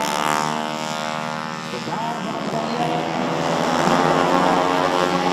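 Racing four-stroke Vespa scooters' engines at high revs going past. The pitch falls over the first second or so, then a rising engine note climbs to its loudest about four seconds in.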